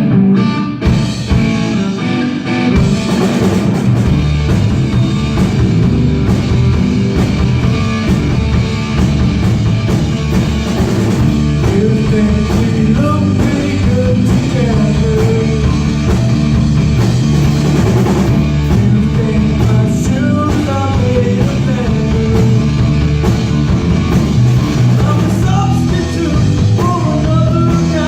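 Loud rock music with singing, drums and guitar, playing steadily throughout.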